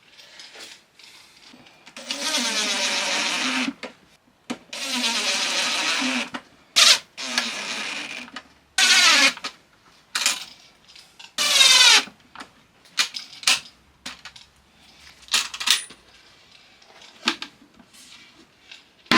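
Power drill running in two runs of nearly two seconds, then several shorter bursts, some dropping in pitch as they stop, among small sharp metallic clicks and taps.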